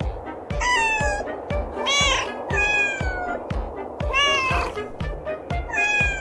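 Cats yowling and meowing, five drawn-out calls, several sliding down in pitch, over background music with a steady beat of about two thumps a second.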